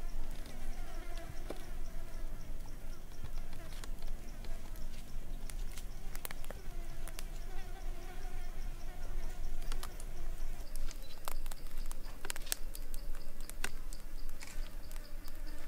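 A fly buzzing, its pitch wavering up and down as it circles, over a background of insects chirping, with scattered sharp clicks, more of them in the second half.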